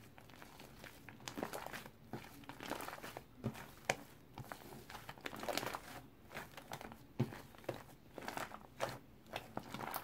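Fluffy shaving-foam slime being stretched, folded and squeezed by hand. It makes irregular crackling pops and soft squishing as the airy slime tears and presses together.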